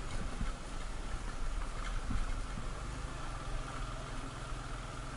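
Small motorcycle engine running at low speed on a rough, stony dirt road, with a few short thumps as the bike jolts over the bumps.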